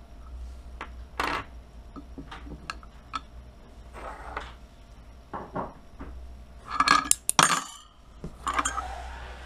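Steel voice-coil magnet plates from a hard drive's head actuator clinking and scraping against the drive's metal chassis as they are handled and set down: a run of sharp clicks and clinks, busiest about seven seconds in.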